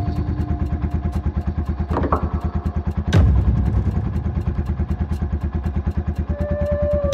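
Yamaha TW200's single-cylinder four-stroke engine idling steadily in a rapid, even beat of exhaust pulses. There are a couple of brief thumps about two and three seconds in.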